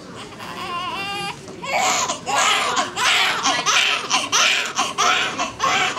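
Newborn baby crying: a first wavering cry about half a second in, then from about two seconds a run of loud, short, repeated wails.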